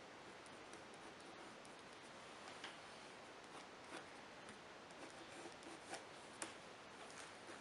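Faint scratching and light ticks of a mechanical pencil's graphite on textured watercolour paper, a handful of short strokes scattered through the second half over a steady low hiss.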